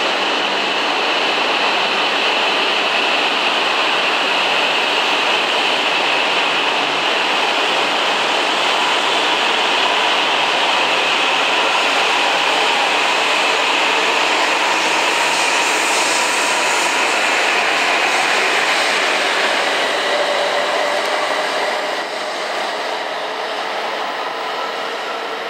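A coupled E5/E6 Hayabusa–Komachi shinkansen pulling out along the platform, its E6 Komachi cars running past with a steady rushing rumble of wheels and traction motors. Faint rising motor tones come in near the end, and the sound eases off a little as the tail car draws away.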